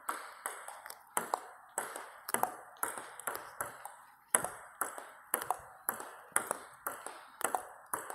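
Table tennis ball in a steady backspin push rally: bat strikes and table bounces alternate as sharp clicks, about two or three a second.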